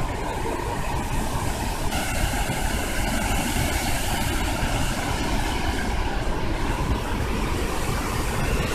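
A large waterfall roaring steadily at close range, in heavy spray.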